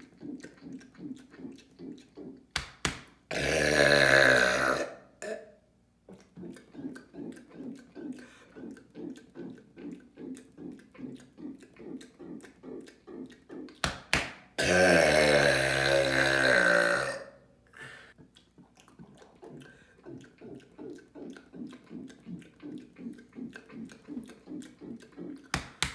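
A man letting out two long, loud, deep burps, the first about three seconds in lasting under two seconds, the second about fifteen seconds in lasting about two and a half seconds. Between them runs a quick series of short, soft pulses, about three a second.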